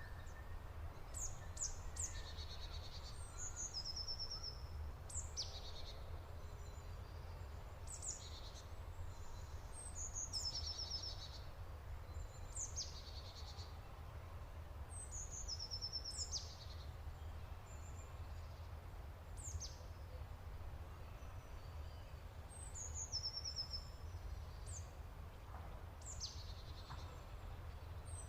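A songbird singing the same high phrase over and over, about every two to three seconds: quick downward-sweeping notes followed by a short rapid run of notes. A steady low rumble lies underneath.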